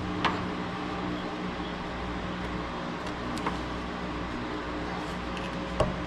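A steady low hum runs under a few light clicks from hands and a tool working the old wiring harness connector and its hardened rubber grommet in the truck's firewall. The sharpest click comes near the end.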